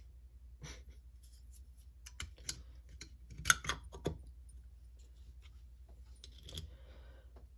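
Light metal clicks and clinks of small carburetor parts and a hand tool being handled during reassembly, with a few sharper clicks about three and a half to four seconds in.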